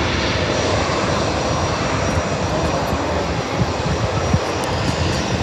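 Jet engines of an Airbus A320 airliner running loud and steady, an even rush of noise that holds without a break.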